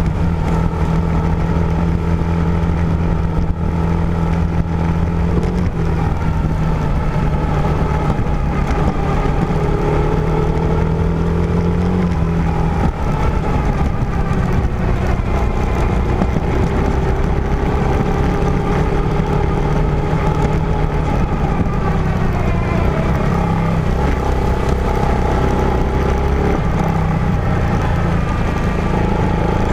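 A vehicle's engine running steadily under way, its pitch shifting up and down a few times with throttle and gear changes.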